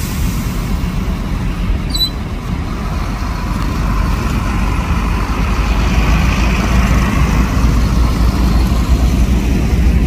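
Heavy diesel truck engines running low and steady as a low-loader carrying two bulldozers and a Shacman dump truck pass slowly; the sound grows louder about halfway through.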